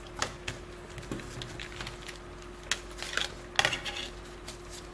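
Hands pressing gaffer tape onto a wound speaker-wire pancake coil and lifting it off a plastic CD-spindle jig: scattered light clicks and rustles over a faint steady hum.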